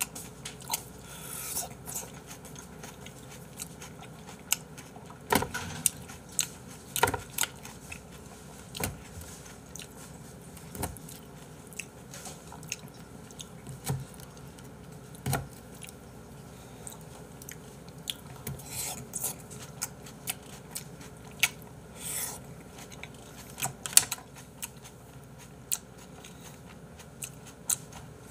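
Close-miked chewing and biting of cherry tomatoes, with irregular wet smacks and sharp clicks. There is an occasional scrape of a wooden skewer against a plastic food tray.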